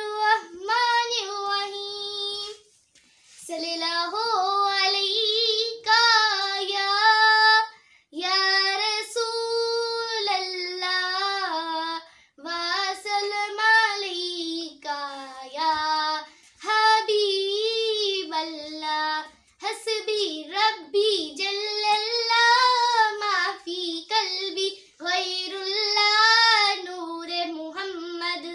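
A girl singing a naat, a devotional song, unaccompanied. She sings long phrases of a few seconds each with a wavering, ornamented pitch, and takes short breaths between them.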